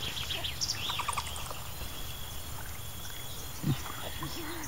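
Animal calls at night: fast high chirping trills and a steady high tone, then a low wavering call near the end.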